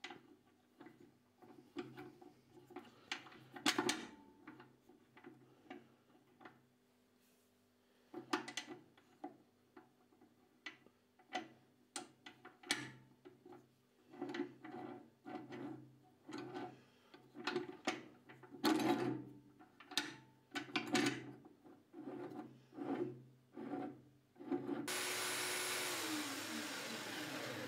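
Vise on a Scheppach portable band saw being worked by hand: the sliding jaw and threaded screw rub and click in many short strokes. Near the end the saw's motor is switched on, runs steadily with a high whine for under three seconds, and winds down with a falling tone.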